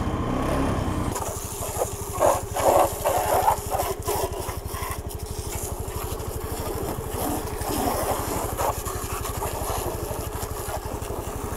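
Honda Navi's small single-cylinder engine idling with a steady rapid putter, left running to recharge its flat battery after a hard start from long storage. From about a second in, a garden hose sprays water onto the bike with an uneven hiss and splatter.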